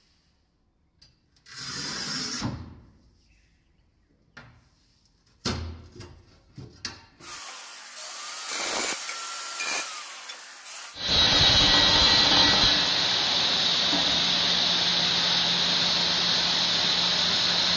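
A power tool starts about eleven seconds in and runs steadily almost to the end. Before that come scattered knocks and a few seconds of loud hiss.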